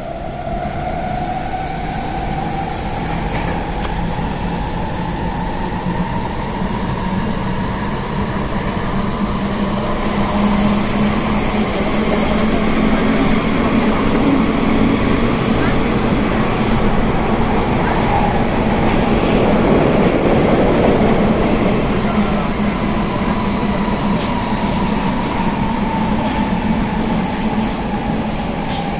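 Athens Metro line 2 train running between stations, heard from inside the car: a steady rumble of wheels on rails, with a motor whine that climbs in pitch as the train gathers speed, holds, and begins to fall near the end as it slows.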